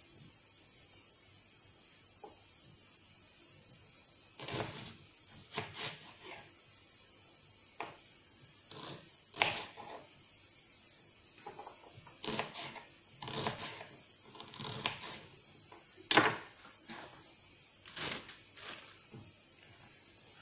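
Kitchen knife chopping spring onions on a plastic cutting board: scattered, irregular knocks, the loudest about three quarters of the way through, over a steady high hiss.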